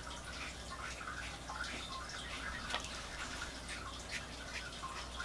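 Wet watercolour brush working a wash across paper: soft, irregular brushing and dabbing strokes, several a second.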